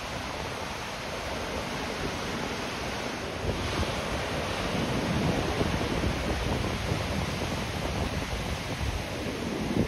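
Ocean waves breaking on the shore, a steady wash of surf that swells louder about a third of the way in, with wind buffeting the microphone.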